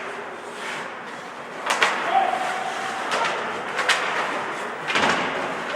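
Ice hockey play in a rink: several sharp clacks of sticks and puck, with brief distant shouts.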